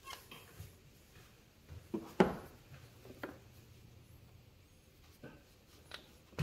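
Scattered clicks and knocks of hand work on an engine, tools and parts being handled, the loudest a sharp knock about two seconds in.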